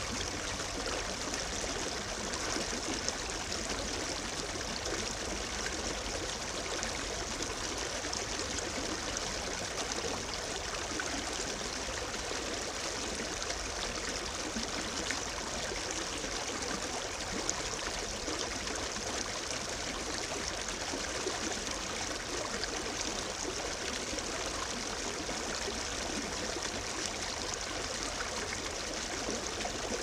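Shallow brook babbling steadily over a bed of stones and around boulders, a continuous even rush of water.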